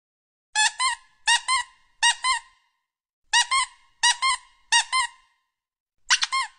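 Rubber squeaky-toy squeaks, each a quick double squeak. There are three about 0.7 s apart, a pause of about a second, three more, and another near the end.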